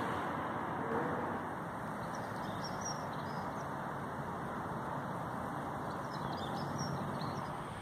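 Outdoor station ambience: a steady rushing background noise with a few faint bird chirps, about three seconds in and again near the end.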